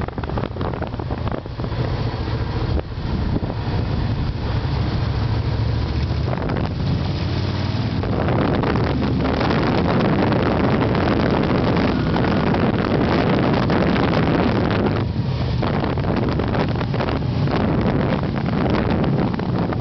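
Motorcycle engine running at a steady road speed, with wind buffeting the microphone. The engine's low hum is clear at first, then from about eight seconds in it is mostly covered by heavier wind noise.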